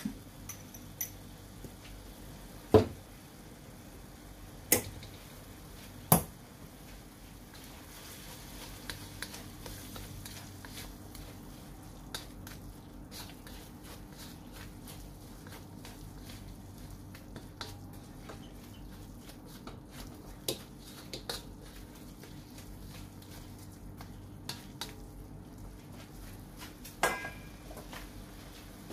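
Ground pork sizzling in a wok as a spatula stirs and scrapes it, with a few sharp clacks of the spatula against the wok: three in the first six seconds and one more near the end.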